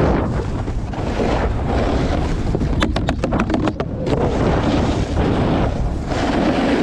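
Heavy wind buffeting the microphone, a dense steady rumble, with a quick run of about eight sharp clicks around three seconds in.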